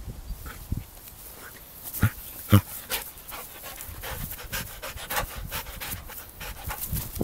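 Dog panting close by, with quick rustling and two short thumps about two and a half seconds in.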